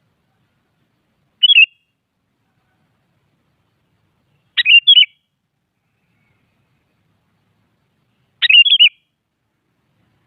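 Sooty-headed bulbul (kutilang) singing: three short whistled phrases of quickly shifting notes, a few seconds apart, the first the shortest.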